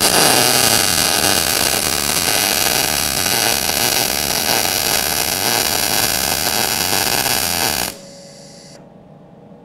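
MIG welding arc from an Eastwood MIG 175 gas-shielded welder running a bead: a steady, loud hissing crackle that cuts off abruptly about eight seconds in, followed by a brief fainter hiss.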